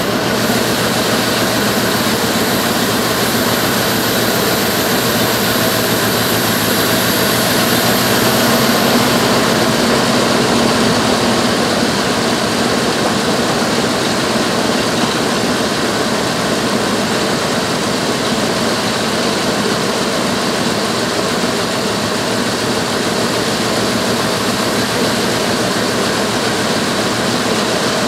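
Dodge 318 Magnum (5.2 L) V8 running steadily at idle, swelling slightly about eight to eleven seconds in. The owner suspects an exhaust leak or a vacuum leak in its sound after the new intake manifold went on.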